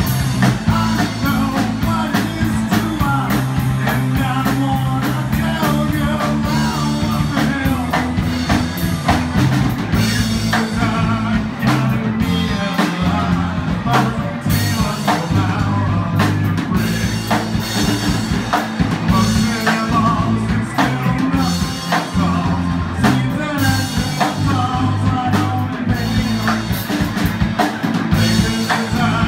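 Live rock band playing: drum kit, bass guitar and electric guitars with vocals. Heard from the audience, the guitars sit quietly in the mix under the bass and drums.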